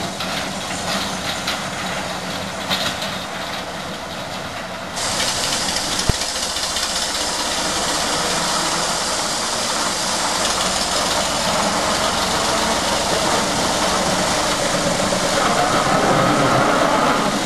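Narrow-gauge railway locomotives: a small diesel locomotive's engine running as it hauls a short train of wagons past close by, over a steady hiss of steam from the steam locomotives standing alongside. The sound changes abruptly about five seconds in, with a single sharp click just after, then grows gradually louder as the diesel draws near.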